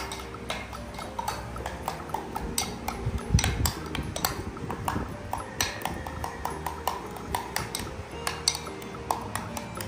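Repeated sharp clinks of a spoon against a dish, as if banana mash is being stirred and scooped, over steady background music.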